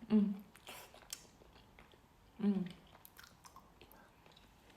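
A person chewing a mouthful of cheesy pasta close to the microphone, with wet mouth clicks and smacks, and two short vocal sounds, one near the start and one about halfway through.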